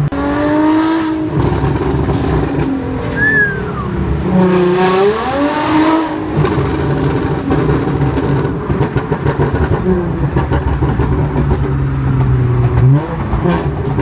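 Audi S4 engine running through its exhaust, revved a few times so the note climbs and falls back between steadier stretches near idle.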